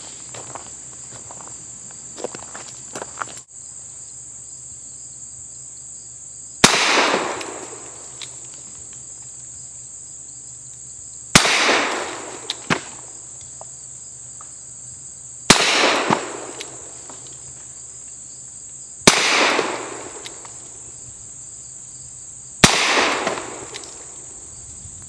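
A Webley Mk VI revolver firing .455 Webley cartridges: five single shots, about four seconds apart, each with a long fading echo. A steady high buzz of insects runs underneath.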